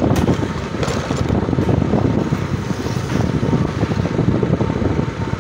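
Motor scooter riding along a bumpy dirt road: engine running and tyres over the rough surface, a steady, rough low noise.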